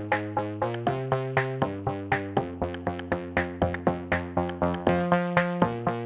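Background music: quick repeating synthesizer notes over a changing bass line, with a steady beat.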